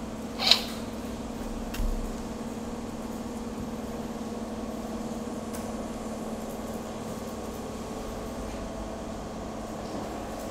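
Steady low machine hum in a small room, such as a fan or air conditioner, with a short hiss about half a second in and a single sharp click just under two seconds in.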